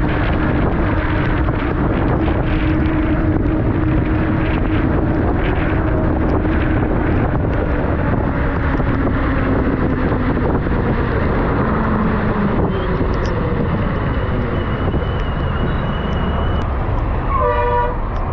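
Steady wind and road noise from riding a motorbike through heavy rain, with a short vehicle horn honk near the end.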